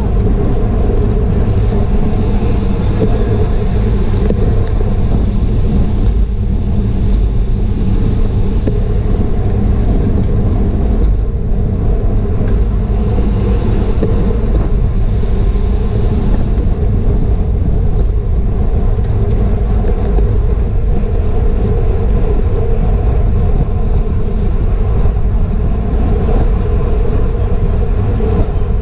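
Steady wind and road rumble on the microphone of a GoPro riding on a racing bicycle at race speed, with a few faint sharp clicks from the bike.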